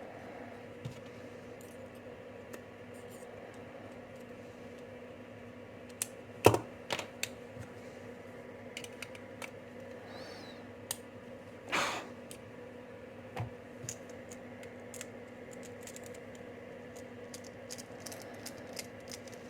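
Scattered light clicks and taps of a Phillips screwdriver working a long screw out of an American Lock 1100 padlock body, with a couple of louder knocks about six and twelve seconds in.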